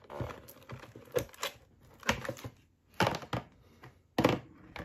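Cardboard packaging of a trading-card mini box being handled and opened: about seven sharp, irregular taps and thunks with light rustling between, the loudest thunk near the end.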